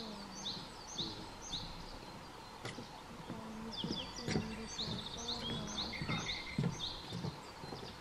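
Japanese yellow bunting singing: a phrase of clear, quickly repeated high notes ends about a second and a half in, and a second phrase follows from about four to seven seconds in.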